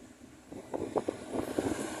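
Tour bus approaching, its engine and road noise growing louder over about half a second, with gusty wind buffeting the microphone.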